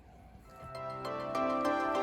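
Instrumental music fading in a little after half a second in and growing steadily louder, with held notes over a steady bass.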